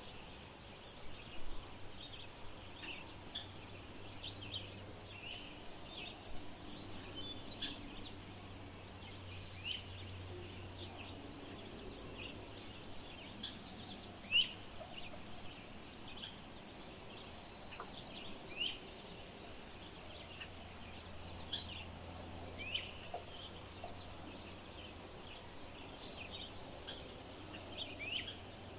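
Birds chirping and calling outdoors, with short sharp high notes every few seconds over a faint steady low hum.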